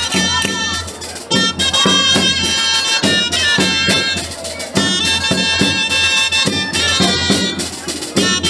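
Traditional folk music: a reedy wind instrument plays a melody over a steady low drone, with a regular beat.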